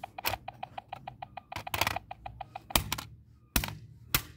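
A broken toy walkie-talkie's speaker glitching in a rapid, even train of clicks, several a second, then sharp blows of a steel claw hammer striking the plastic walkie-talkie on concrete, three loud ones in the second half.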